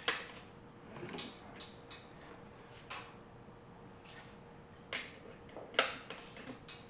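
Sparse, irregular light clicks and ticks as an LS1 V8's crankshaft is turned over slowly by hand with a ratchet, the sharpest click about six seconds in.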